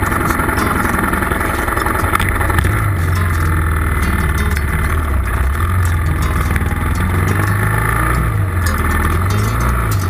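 Motorcycle engine pulling away and accelerating, its note rising and falling several times as it goes up through the gears.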